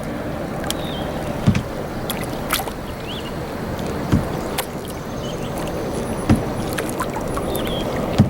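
Kayak paddling on a river: paddle blades dipping and pulling through the water with a low thump about every two seconds, over a steady wash of water, with scattered sharp clicks and knocks.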